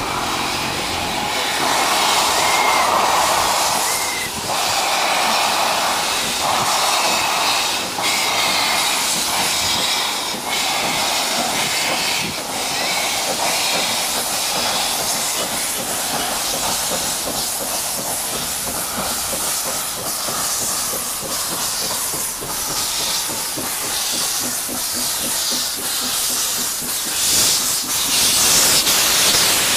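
Ffestiniog Railway narrow-gauge steam locomotive approaching with a loud, steady hiss of steam, with regular exhaust chuffs that grow louder near the end.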